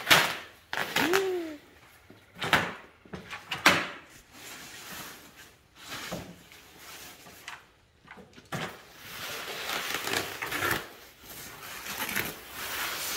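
Plastic wrapping sheet rustling and crackling as it is pulled off long packaged beams, in several sharp crinkling bursts, then denser, steadier rustling over the last few seconds.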